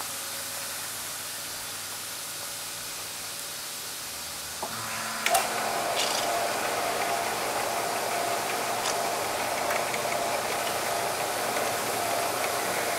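A steady hiss, then about five seconds in a switch clicks and a horizontal bandsaw starts up. It runs on steadily with a high whine as its variable-tooth blade feeds down into half-inch aluminium plate.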